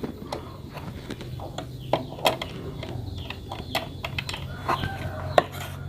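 Irregular small clicks and taps of a sewing machine's bobbin case being handled and fitted back into its shuttle, over a low steady hum.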